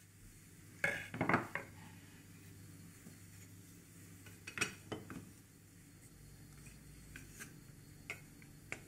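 Wooden kitchen utensils and boards clacking against each other and a ceramic utensil crock as they are handled and set in place: a cluster of knocks about a second in, another pair around the middle, and a few light taps near the end.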